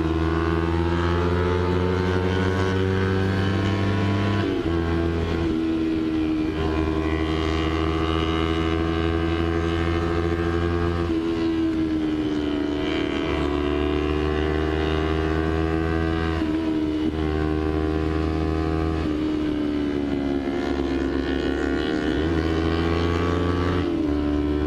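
Kawasaki Ninja 250's parallel-twin engine running at steady cruising revs while ridden, its pitch rising and falling gently with the throttle and dipping briefly a few times.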